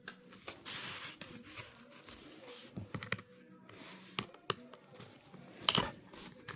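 Handling and small-tool work on a phone: scraping and rustling with scattered clicks and taps, a sharper click near the end.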